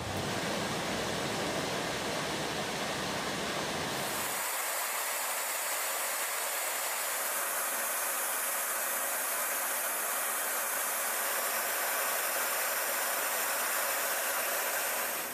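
Steady rushing noise of a jet aircraft in flight heard from on board: airflow and engine noise with no distinct tone. About four seconds in the low rumble drops away, leaving a steady higher hiss.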